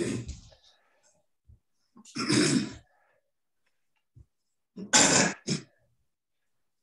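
A man coughing and clearing his throat in short, harsh bursts between exertions: one right at the start, one about two seconds in, and a quick double cough near five seconds. He is sick and under the weather.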